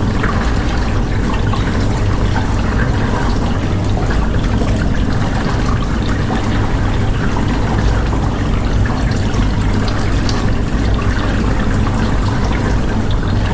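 Dishwasher running through a wash cycle: water spraying and splashing inside the tub over the steady hum of its pump motor.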